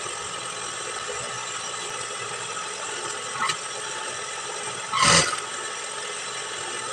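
Juki industrial sewing machine running with a steady mechanical whir, with a short louder sound about three and a half seconds in and a stronger one about five seconds in.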